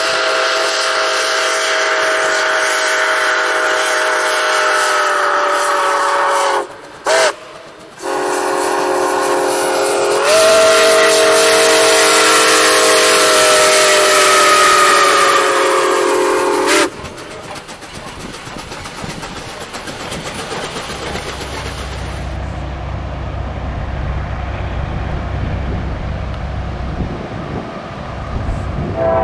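Diesel freight locomotive's air horn sounding a chord in long blasts, with a short toot in a brief gap about seven seconds in, its pitch sagging as the locomotive goes by. The horn stops about seventeen seconds in, leaving the steady rumble of the train's cars rolling past.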